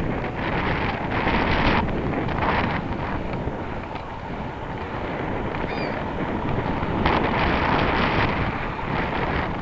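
Wind rushing over the microphone of a camera on a moving bicycle: a steady rush that swells louder in the first couple of seconds and again near the end.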